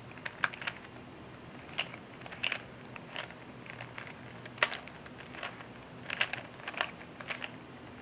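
Plastic clicks and clacks of a 3x3 Rubik's cube's layers being turned by hand: a run of short, irregular clicks, the sharpest about halfway through.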